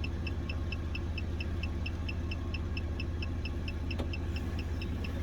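Key programmer beeping steadily in short high pips, about four a second, while it reads data from a BMW EWS immobiliser module, over a steady low hum.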